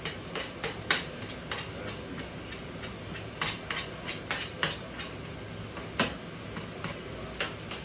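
A metal spoon clinking and scraping against a metal saucepan as mashed potatoes are stirred and mashed, in irregular taps several a second, the loudest about six seconds in.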